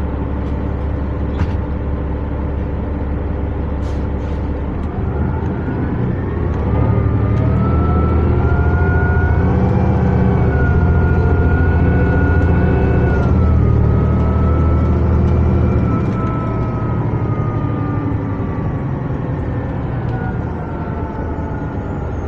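The Cummins ISL 9.8 diesel of a New Flyer D60LFR articulated bus, idling and then pulling away about five seconds in. A whine climbs in pitch as the bus speeds up and holds steady while the engine works harder; the engine eases off about two-thirds of the way through.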